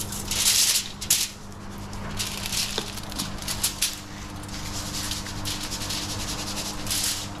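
Salt and pepper shaken from a shaker onto a fish fillet on aluminium foil: a series of short, hissing rattles, coming thicker and steadier over the last few seconds.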